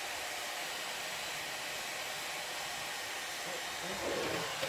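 Handheld hair dryer blowing hot air steadily at a car bumper, softening double-sided tape adhesive so the old license plate mount peels off.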